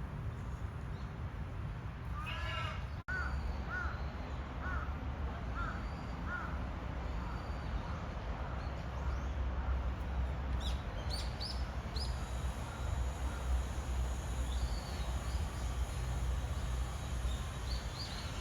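A crow cawing, first one call and then a run of about five evenly spaced caws, followed later by small birds chirping high and thin several times, over a steady low outdoor rumble.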